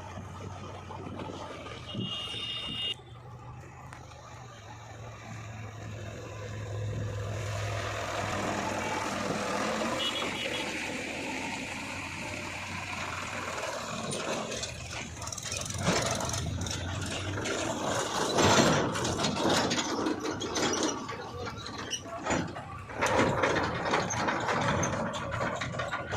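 Diesel earthmoving machinery at work, a backhoe loader and tractor, with a steady low engine drone. From a little past halfway it grows louder and busier, with irregular knocks and scraping.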